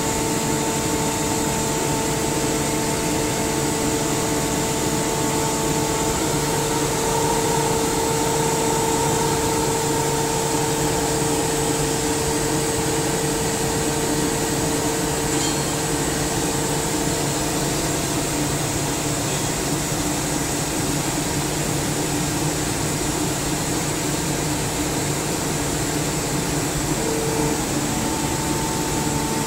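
SCR50M rotary screw air compressor running steadily: a constant hum and hiss with a couple of held tones that shift slightly partway through.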